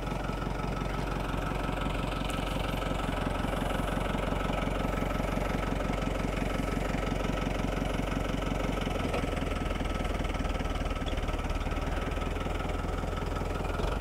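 Tractor engine running steadily, with a slight change in its low note about nine seconds in.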